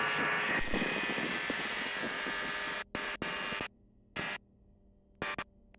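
Rushing wind and engine noise of an ultralight in flight, heard through the pilot's headset microphone and intercom. The noise cuts off abruptly about three seconds in, as if a voice-activated squelch were closing, and comes back in three short bursts. Under it runs a faint steady engine hum.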